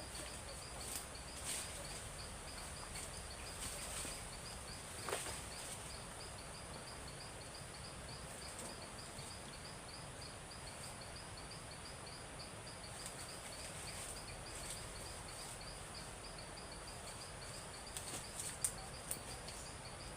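Insects chirping in a fast, even pulse, with a steady high buzz above it. A few faint snaps and ticks come through, one about five seconds in and several near the end.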